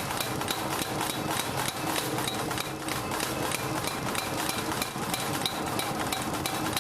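Hammer striking metal on an anvil in rapid repeated blows, several a second, each with a short metallic ring, as in forging an axe head.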